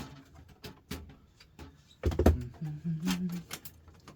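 Clicks and knocks of a laser printer's plastic parts being handled and pulled during disassembly, with a louder thump about two seconds in and a brief low tone after it.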